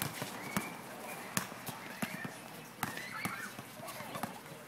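Soccer ball being kicked on a hard outdoor court amid players' running footsteps: irregular sharp knocks, with short high squeals between them.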